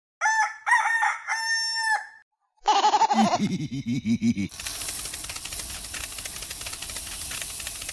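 A rooster crows in a three-part cock-a-doodle-doo. A lower, wavering call follows, and from about halfway through a steady, noisy buzz takes over.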